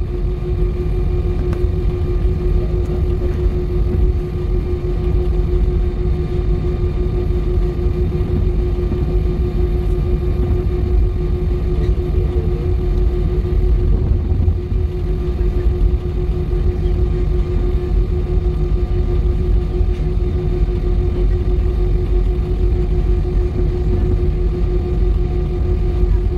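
Jet airliner cabin noise while taxiing: the engines and cabin air give a steady low rumble with a constant hum over it, heard from inside the cabin.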